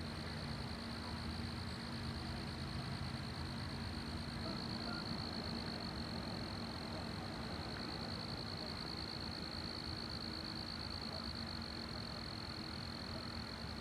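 Outdoor ambience dominated by a steady, high-pitched insect trill, like crickets or katydids calling continuously. A low steady hum and rumble run underneath.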